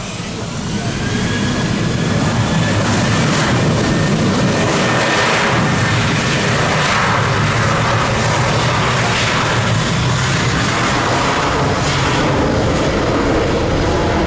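Boeing 737 jet engines running at high power close by: a loud, steady jet noise that swells over the first second or so, with a faint high whine in it early on.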